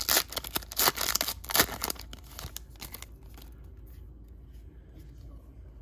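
Foil wrapper of a 2017 Topps Chrome trading card pack being torn open, with loud, sharp ripping and crinkling for about two seconds that thins to faint crackles and dies away about three seconds in.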